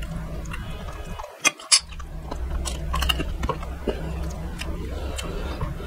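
Close-miked eating sounds from a man eating fried fish head by hand: wet chewing, lip smacking and finger sucking, with scattered sharp clicks. Two loud sharp cracks come close together about one and a half seconds in, over a steady low hum.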